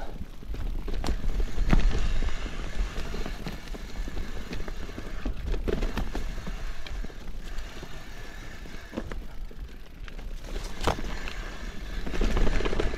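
Mountain bike descending a stony trail: tyres running over loose stones with scattered knocks and rattles from the bike, over a steady low wind rumble on the microphone.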